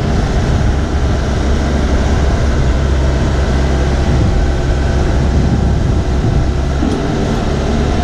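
Boat travel lift's engine running steadily while it holds the hull in its slings, a low, even drone.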